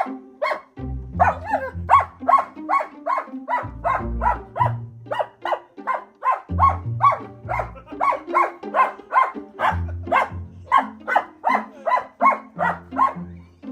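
German Shepherd barking over and over in quick short calls, about three a second, over background music with low bass notes.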